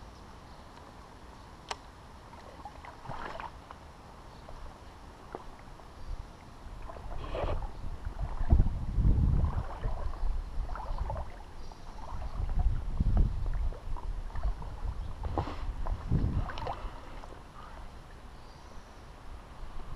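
Shallow creek water sloshing and splashing in irregular surges, with low rumbling and a few knocks, from someone moving through the water at the edge of a rock bank.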